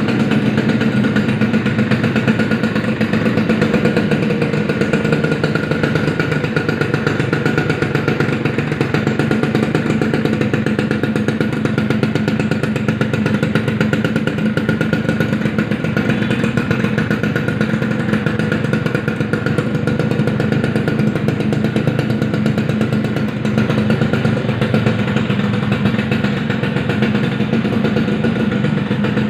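Honda Tornado GS motorcycle's two-stroke single-cylinder engine running steadily, without revving.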